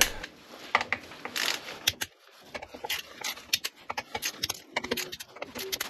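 Ratcheting torque wrench tightening motorcycle brake disc bolts to 22 Nm: a run of irregular sharp clicks and metal rattles.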